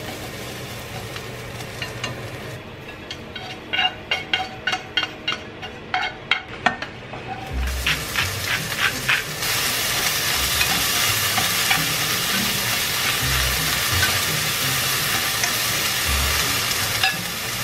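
Julienned carrots stir-fried in oil, with wooden chopsticks clicking sharply and repeatedly against the pan for a few seconds. Then bell pepper strips sizzle in the hot oil, a steady hiss that gets louder about halfway through.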